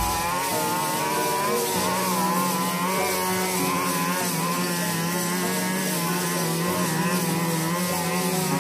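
A 42cc two-stroke backpack brush cutter running at high revs with a short metal blade cutting through thick weeds. The engine note wavers up and down as the blade meets the grass.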